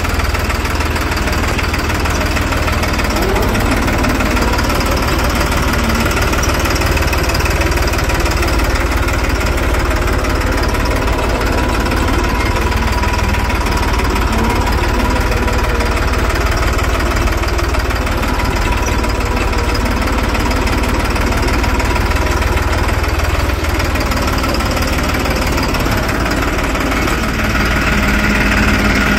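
New Holland 3630 tractor's three-cylinder diesel engine running steadily at an even speed.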